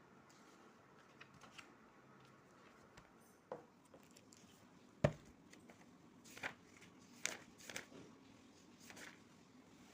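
A handful of light, scattered clicks and taps from small objects being handled in a quiet room, the sharpest about five seconds in.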